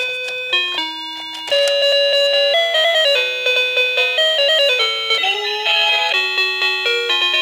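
Electronic toy telephone playing a beeping melody of short, stepping electronic notes. About a second and a half in it grows louder and busier, with a sliding pitch near the middle, then settles into a quick, regular run of short notes.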